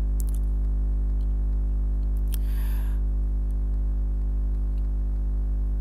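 Steady low electrical mains hum with its stack of overtones on the recording, with a brief soft hiss about two and a half seconds in and a few faint clicks.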